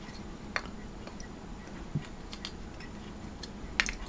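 A few scattered light clicks and taps, with a duller knock about two seconds in and the sharpest click near the end: small hard plastic parts being handled and fitted.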